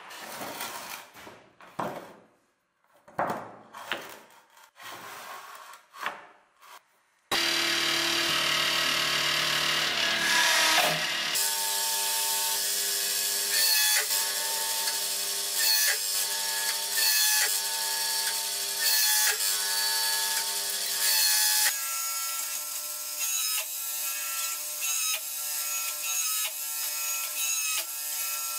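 Heavy steel billet blocks knocked together and set down on a metal bandsaw table, several sharp clacks. Then, from about seven seconds in, a forging press runs under load, its motor and pump whining steadily, the pitch shifting every second or two as it squeezes a red-hot Damascus billet between diamond dies.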